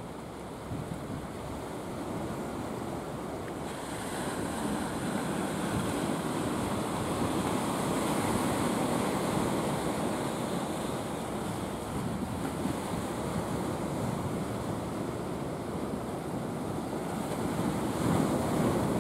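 Sea surf washing and rushing, with wind buffeting the microphone. The hiss of the surf swells about four seconds in and rises again near the end.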